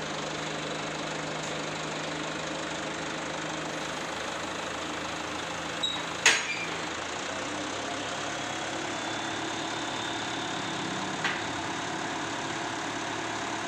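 Flatbed tow truck's engine running steadily while its hydraulic bed is being tilted, the hum shifting in pitch about seven seconds in. A sharp metallic clank about six seconds in and a lighter one later.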